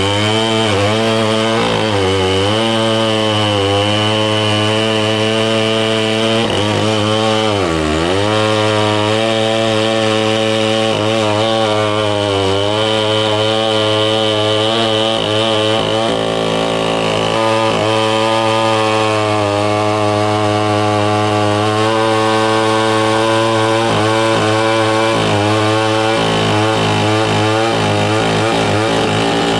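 Stihl 090 two-stroke chainsaw running flat out while cutting through a bundle of firewood logs. Its pitch sags and recovers again and again as the chain bogs under load, dropping deepest about eight seconds in.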